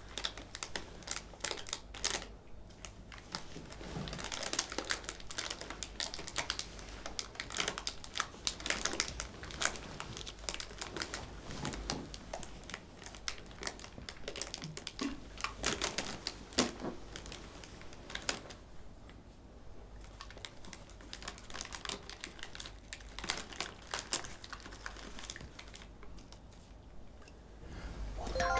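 Plastic potato-chip bag crinkling and crackling in slow, careful bouts as it is being opened, with a couple of quieter pauses between.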